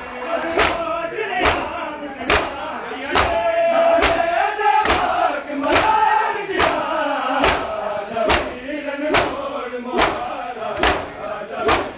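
A crowd of men doing matam: they slap their chests in unison at a little more than one strike a second, while the group chants a lament between the beats.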